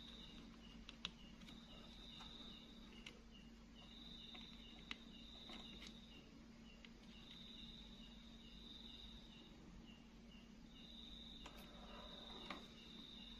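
Faint insects in the background: one chirping steadily about three times a second, another trilling in bursts of a second or two, over a low steady hum. A few light clicks stand out, around a second in, near the middle and near the end.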